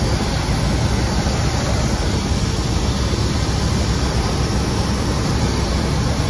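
Steady, loud rushing noise of machinery on an airport apron beside a parked airliner, with no distinct events.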